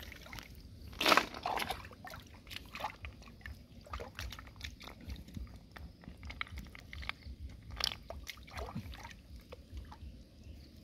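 Hands splashing in shallow stream water about a second in, followed by scattered small clicks and light sloshing as snails are gathered from the muddy streambed.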